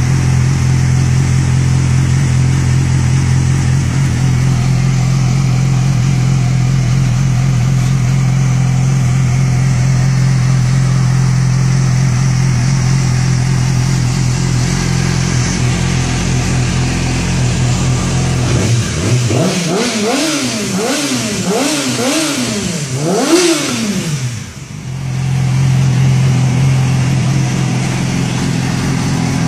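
Motorcycle engine idling steadily, then blipped about 19 seconds in, the revs rising and falling several times in quick succession before it drops back and settles to idle again.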